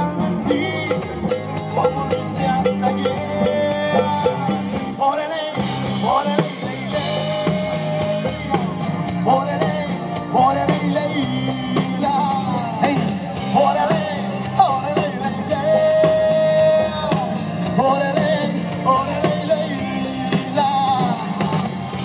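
Live Latin band music: congas and drum kit keep a steady beat under guitar and bass guitar.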